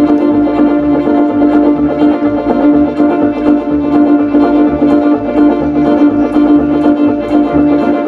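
Old-time string band playing live: upright bass keeping a steady beat under banjo and fiddle, with one long note held over the rhythm.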